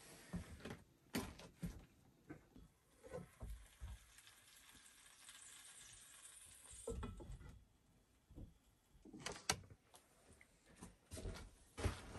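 Quiet clinks and knocks of a lidded cast iron skillet being handled on a propane camp stove, with a soft hiss in the middle while the lid is lifted off the steaming pan. The sharpest metal clanks come near the end.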